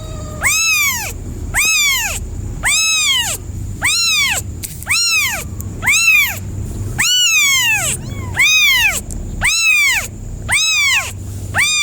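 A kitten meowing over and over, high-pitched calls that each rise and fall, about one a second: a kitten crying for its mother.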